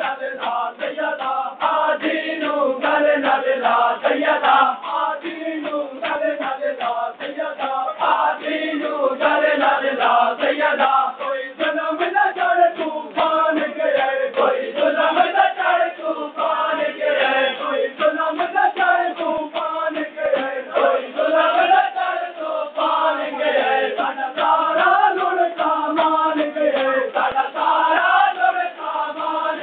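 A crowd of men chanting a nauha, a Shia mourning lament, in unison, over a steady rhythm of hands slapping bare chests in matam.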